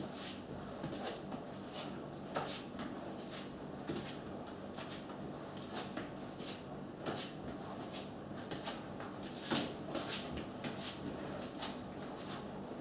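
Nunchaku swung in forward and backward spins, a quick short swish with each pass, coming irregularly about two or three times a second.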